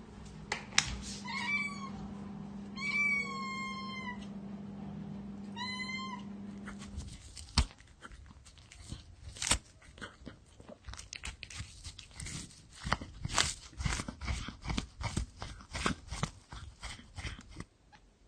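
A cat meowing three times, the middle meow the longest. Then a long, irregular run of quick crunching clicks as a cat chews on tissue paper.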